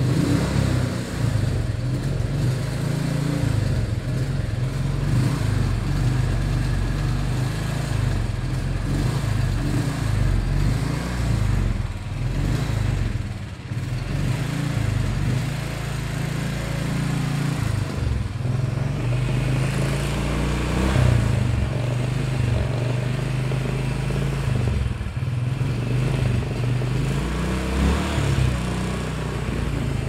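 Royal Enfield Thunderbird 350's single-cylinder engine idling steadily.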